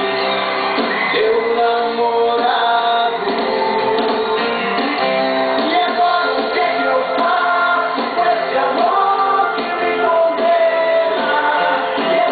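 A song playing from a backing track with a man singing, the voice holding long sustained notes over the accompaniment.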